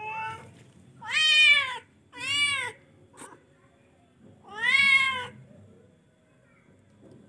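F1 hybrid cat meowing: a short call at the start, then three loud, drawn-out meows, each rising and then falling in pitch.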